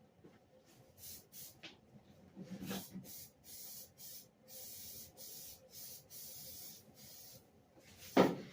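Aerosol spray can of primer hissing in a series of spray bursts over fresh welds, short squirts at first and then longer passes. A sharp knock near the end is the loudest sound.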